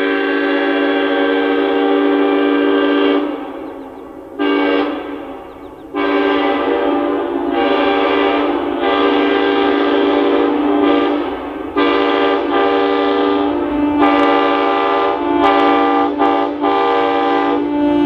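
Locomotive multi-chime air horn blowing loud, steady chord blasts: a long blast, a short one about four seconds in, then long blasts that run almost unbroken, with only brief gaps, to the end.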